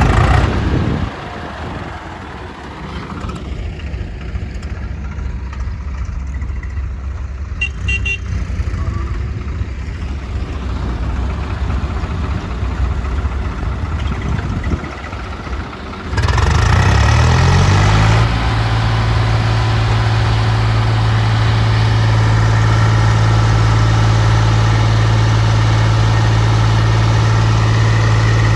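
Diesel engines of tractors and a backhoe running. Just over halfway a louder engine revs up sharply, its pitch rising for about two seconds, then holds a steady loud drone.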